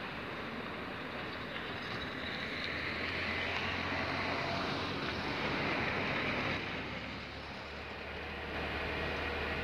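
Street traffic passing: a steady hiss of tyres and engines that swells around the middle and eases off briefly near the end.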